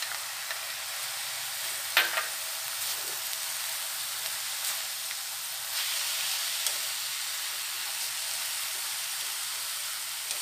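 Fenugreek leaves, soaked moong dal and chopped tomato sizzling in oil in a kadhai while a slotted spatula stirs them, with steady frying hiss and short scrapes and knocks of the spatula against the pan, the sharpest about two seconds in.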